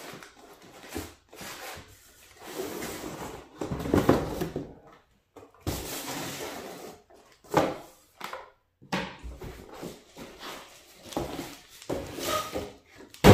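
Cardboard packaging being handled: an inner cardboard tray scraping and sliding out of its box, with rustling and a sharp knock about halfway.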